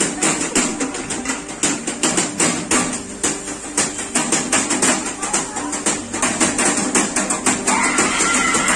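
Thiruvathira chozhi folk music: a quick, even beat of sharp clacks, several a second, with voices chanting along. A higher voice joins near the end.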